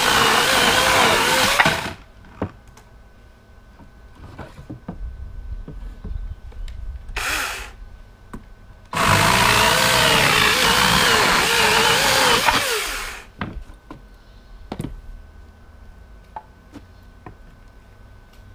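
Greenworks Pro 80V battery chainsaw cutting through 2x6 lumber: the electric motor's whine, wavering in pitch, with the chain tearing through wood, ending about two seconds in. A short spin-up of the saw comes around seven seconds, and a second cut runs from about nine to thirteen seconds. In between and after, the cut wooden pieces knock as they are handled.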